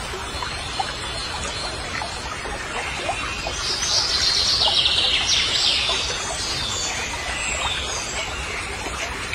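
Woodland ambience with birds chirping. Starting about three and a half seconds in, a louder run of chirps lasts about three seconds, then fades back to the steady background.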